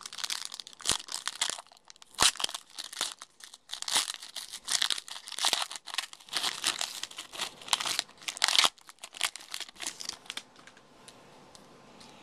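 Foil wrapper of a trading-card pack crinkling and tearing as it is ripped open and crumpled by hand, a dense run of sharp crackles that dies away about two seconds before the end.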